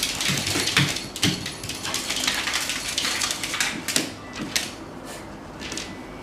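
Dogs moving about and playing, with scuffling, knocks and several short low vocal sounds in the first second and a half, quieter toward the end.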